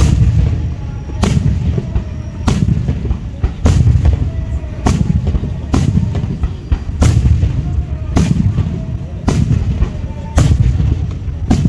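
Aerial fireworks shells bursting overhead in a steady sequence, a sharp bang about once a second, each trailed by a low rolling boom.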